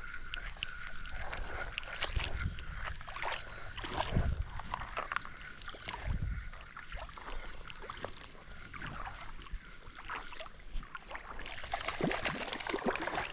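Kayak paddle strokes on a river, a low splash about every two seconds, with water sloshing and dripping against the hull.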